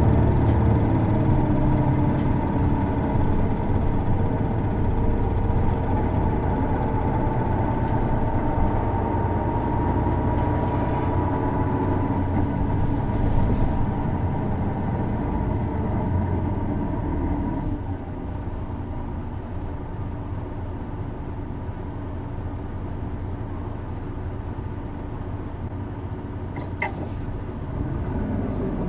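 Isuzu Erga city bus's inline-six turbo diesel engine heard from inside the cabin while driving, with a tone that rises in pitch partway through. The engine gets quieter at about two-thirds of the way in as the bus eases off. The engine is one known for a characteristic odd noise.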